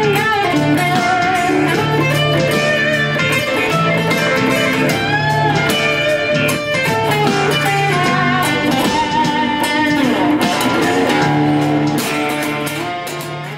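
SG-style solid-body electric guitar played through an amplifier: a lead line with string bends over sustained low notes, fading out near the end.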